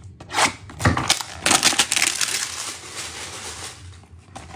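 A cardboard trading-card hanger box being torn open by hand: a couple of sharp snaps, then about two seconds of crinkling, tearing packaging.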